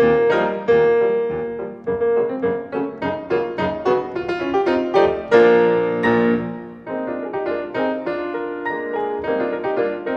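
Background piano music: a solo piano playing a flowing run of notes and chords, with a louder chord struck about five seconds in.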